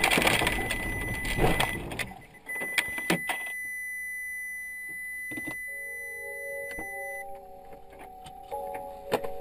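Car driving noise picked up by a dashcam for about two seconds, then a steady high electronic tone, followed by a few held notes that change pitch.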